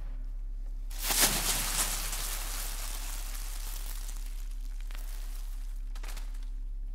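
Newspaper being crumpled in the hands: a sudden burst of crackling about a second in that fades away over the next few seconds, with a few faint crackles later. A steady low electrical hum underneath.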